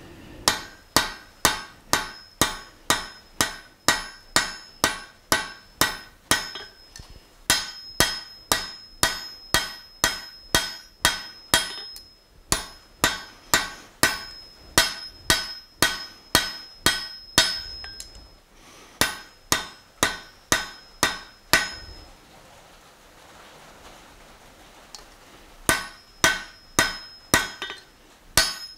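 Blacksmith's hand hammer striking a red-hot bar on an anvil, drawing out a taper: steady blows about two and a half a second, each with a high ring. The blows come in runs broken by short pauses, with a longer gap of about three seconds before a last run near the end.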